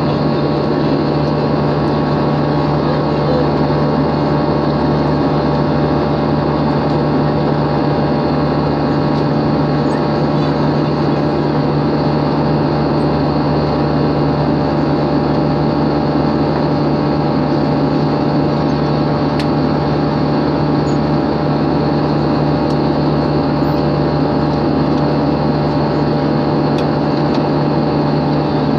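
Steady drone of a jet airliner in cruise flight heard inside the cabin: turbofan engine and airflow noise with a low steady hum and a few fainter steady tones over it.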